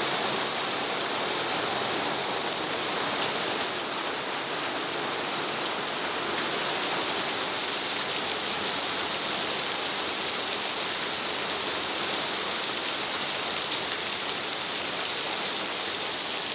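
Steady heavy rain, with runoff water splashing onto wet ground. Slightly quieter from a little under four seconds in.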